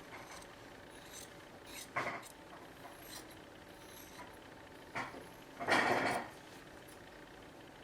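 Small leather reinforcement pieces being cut out by hand: a few short scraping, rustling cuts, the longest and loudest about six seconds in, over a faint steady hum.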